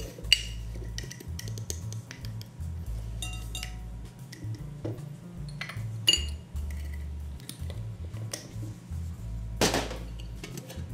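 Metal measuring cup and spoon clinking and tapping against a glass sugar jar and a glass mixing bowl: scattered light taps, two ringing clinks (just after the start and about six seconds in), and a duller, louder knock near the end.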